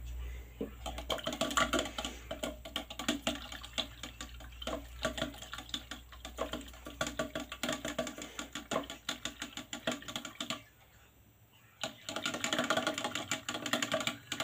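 A stick stirring a citric acid and dish soap solution in a small plastic cup, making rapid clicking and scraping against the cup's sides. The stirring stops for about a second near the end, then starts again.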